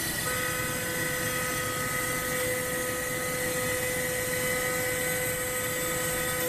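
CNC router spindle running with a steady high whine as the bit cuts into MDF. A second steady tone joins shortly after the start as the machine moves along its cut.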